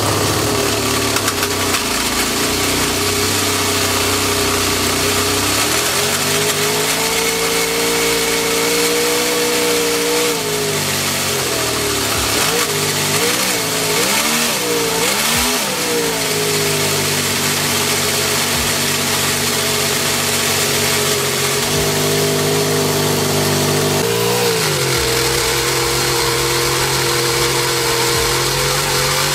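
Toyan model V8 engine running in a four-wheel-drive RC car, working against the strain of driving all four wheels. It revs up and holds about six seconds in, is blipped up and down several times in quick succession, then settles back to a steady run with small shifts in speed.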